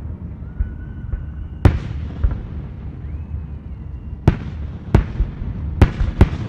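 Aerial fireworks shells bursting: about six sharp bangs at uneven intervals over a steady low rumble, with a faint high tone just before the first bang.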